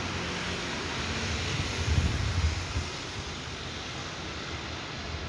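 Wind buffeting the microphone over a steady low rumble of electric trains in a rail yard, with a stronger gust about two seconds in.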